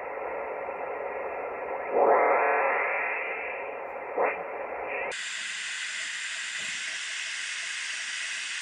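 HF amateur radio transceiver's receiver hiss and static as its tuning knob is turned across the band, with a louder garbled signal sweeping past about two seconds in and a short blip about four seconds in. About five seconds in the hiss suddenly turns thinner and brighter.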